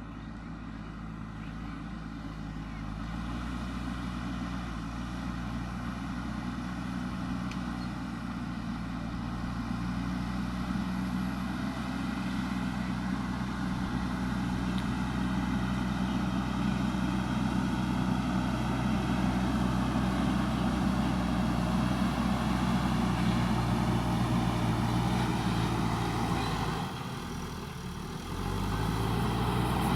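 JCB backhoe loader's diesel engine running steadily, getting gradually louder over the first half, with a brief dip in level near the end before it picks up again.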